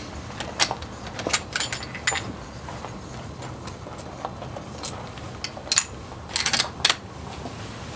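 Sharp metallic clicks and clacks of a bolt-action rifle's action being handled, as the bolt is worked. They come in clusters about a second in and again around six to seven seconds in.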